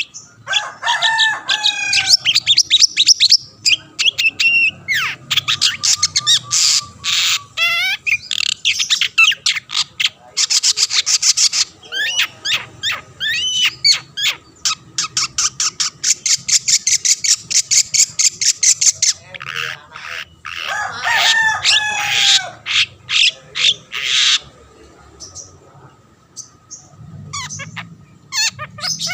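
Long-tailed shrike singing a loud, varied song: fast rattling trills of rapidly repeated notes mixed with sliding whistled phrases. It breaks off for a few seconds near the end, then resumes. This is the excited full song that bird keepers play to provoke other shrikes into singing.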